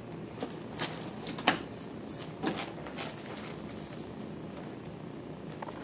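Kittens scuffling about in a wire cage: a few light knocks, then a scratchy rustle lasting about a second.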